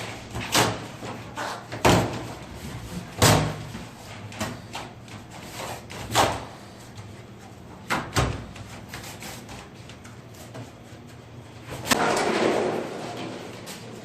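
Cardboard carton and packing being pulled off a new washing machine: a series of sharp knocks and thumps, then a longer scraping rustle near the end.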